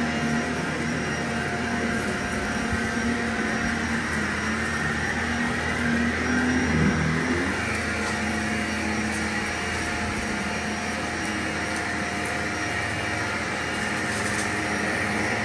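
Vacuum cleaner running steadily in slow passes, a continuous suction rush over a steady motor hum, with a slight swell about seven seconds in.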